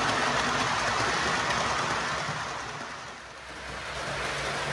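Model trains running on the track: a steady rushing hiss of wheels on rail, which dips about three seconds in and returns with a faint low motor hum underneath.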